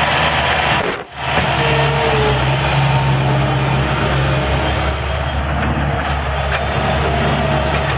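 New Holland skid steer loader's diesel engine running steadily under load as it digs and pushes dirt. The sound drops out sharply for a moment about a second in.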